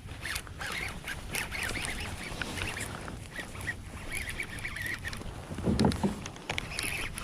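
Waterfowl calling in short wavering honks, with scattered clicks and a loud low knock about six seconds in.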